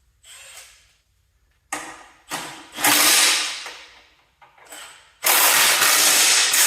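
Impact wrench run in several bursts: short ones between longer runs of about a second, with the longest near the end.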